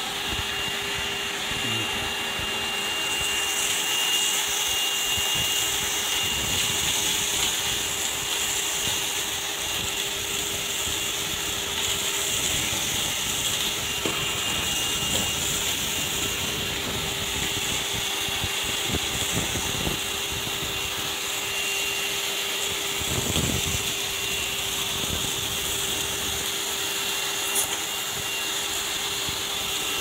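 Shop vacuum running steadily through a cyclone dust separator, sucking up sawdust and dirt from a tile floor: a constant motor hum and whine over the rush of air.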